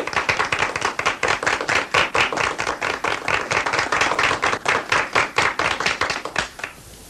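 A small group of people applauding with hand claps, which die away near the end.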